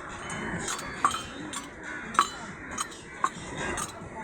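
Utensils clinking at a tea stall counter: four short, sharp clinks spread over a few seconds, against a steady background hiss.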